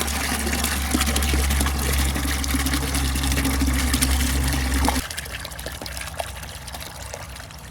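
Water running hard from a newly installed yard water hydrant into a bucket, a steady rushing hiss with a low hum under it. About five seconds in the hum and most of the rush cut off suddenly, leaving a quieter trickle.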